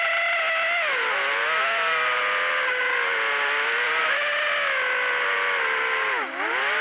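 Brushless motors and propellers of an Eachine Wizard X220 FPV quadcopter whining in flight, several close pitches sliding up and down together with the throttle. About six seconds in the pitch drops sharply and briefly as the throttle is chopped, then climbs back.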